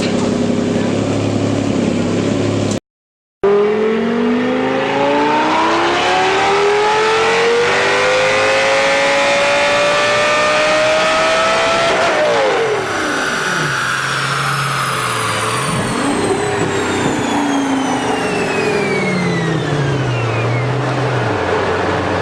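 Lamborghini engine on a chassis dynamometer: after a brief cut, the revs climb steadily for about eight seconds in a pull, then drop sharply off the throttle, rise once briefly, and settle back to idle near the end. A high whine falls away slowly as the revs come down.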